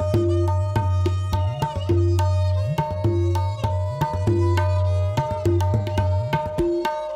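Tabla played solo: quick crisp strokes on the small right-hand drum (dayan) over deep, ringing bass strokes on the left-hand bayan, several of them sliding up in pitch as they are held. The bass strokes stop a little after six seconds in, leaving the lighter right-hand strokes.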